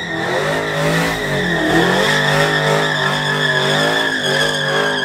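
A car spinning its tires in a burnout, its tires squealing in one long steady note that slowly sinks in pitch while the engine revs rise and fall underneath.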